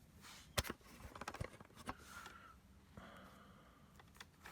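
Light handling clicks and rustling as the vacuum cleaner's new power-cord wires are worked through its housing: a few sharp clicks, the strongest about half a second in, with short rustles between them.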